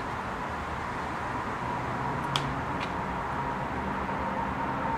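Steady whirring background noise with a faint high tone, and one sharp click about halfway through, followed by a fainter tick, as small ignition wires and connectors are handled.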